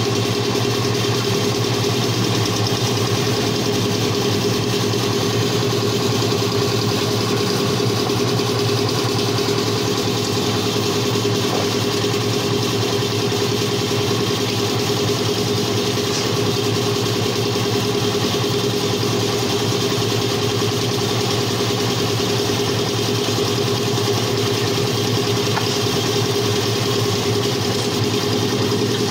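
An engine running steadily at a constant speed, a continuous drone that neither rises nor falls.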